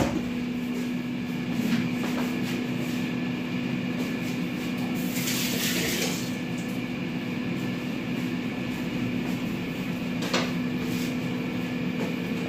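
Steady hum, with a short hiss about five seconds in and a light knock near the end.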